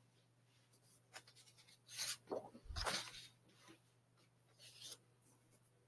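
A few faint rustling and rubbing noises, the loudest around two to three seconds in with a soft low bump, and a brief one near the end, over a faint steady hum.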